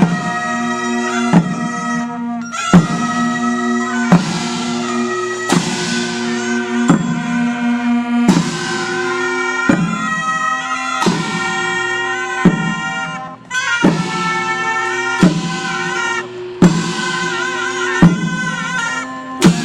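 Korean royal processional music for the palace guard ceremony: a shrill double-reed taepyeongso shawm holding long notes over a drum struck about every second and a half.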